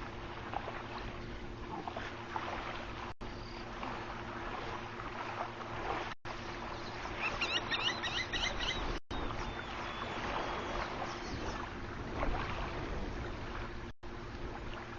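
Outdoor waterhole ambience through a wildlife webcam's microphone: a steady wash of background noise, with a bird's rapid series of high chirps about halfway through. The audio cuts out for an instant four times.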